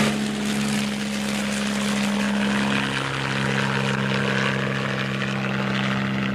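Helicopter flying: a steady engine hum under rotor and wind noise.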